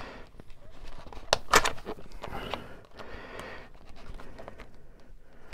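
A person breathing heavily near the microphone, a few long hissy breaths, with a cluster of sharp clicks about a second and a half in.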